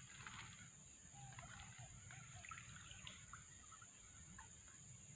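Near silence: faint outdoor background with a steady high hiss and scattered soft ticks and small chirps.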